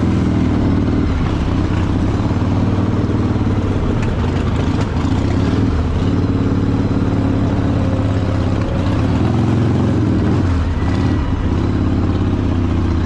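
Motorcycle engines running steadily, a low continuous engine note that varies only a little.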